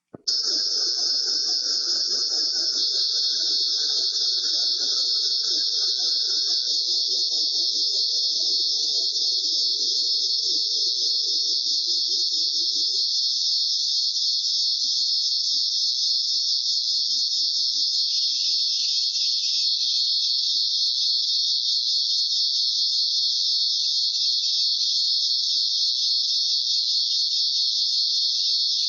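Synthesized paper-crackle sound effect, built from square waves and shaped with a graphic equalizer, playing as a steady high-pitched hiss. A quieter low layer underneath thins out and is gone about thirteen seconds in.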